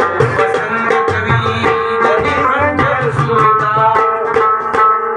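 Pashto folk music: a rabab plucked in a quick run of notes over a steady rhythm hand-beaten on a metal pot drum.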